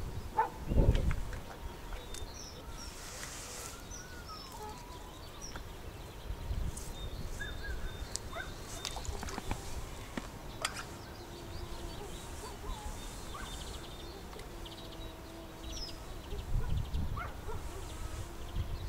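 Scattered songbird chirps and short whistles over a light outdoor rumble, with gusts of wind on the microphone about a second in and again near the end.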